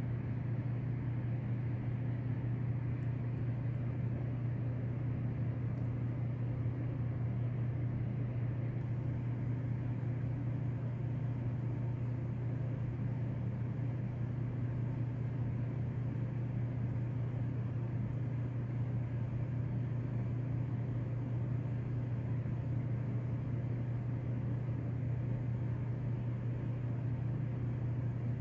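A steady low hum with an even, unchanging level.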